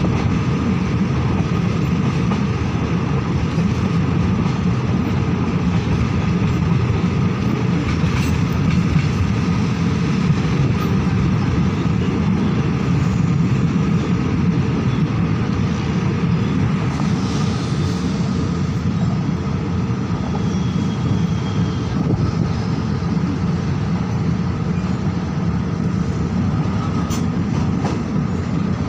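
Passenger coach of a State Railway of Thailand train running at a steady speed, heard from inside by an open window: an even wheel-on-rail rumble with a few faint clicks.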